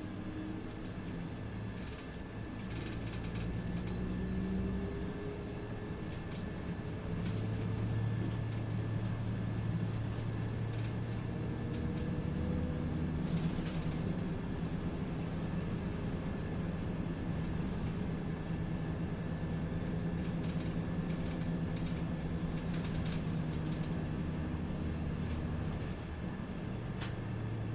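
City bus heard from inside the passenger cabin: its engine climbs in pitch twice as the bus accelerates, then runs steadily under load, and eases off near the end. A few light clicks and rattles come through now and then.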